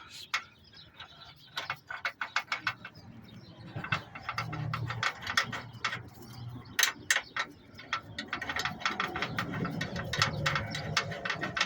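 Socket ratchet clicking in quick runs of clicks, several bursts in a row, as a motor mount bolt is turned in.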